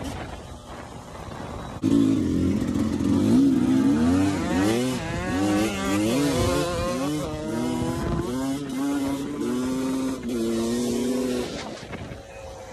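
Yamaha YZ250 two-stroke dirt bike engine on the move. It runs quietly off the throttle at first, then opens up loudly about two seconds in. Its pitch rises and falls several times, holds steadier for a few seconds, then eases off near the end.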